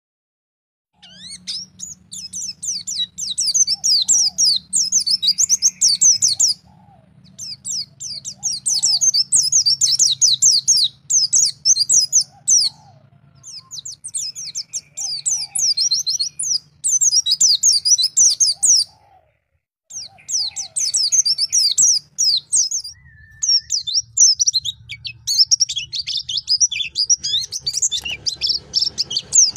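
White-eye (pleci) singing a long, rapid, high twittering song in bouts of several seconds with short pauses between them: the wild-type 'ngalas' song used as a tutor recording for young white-eyes.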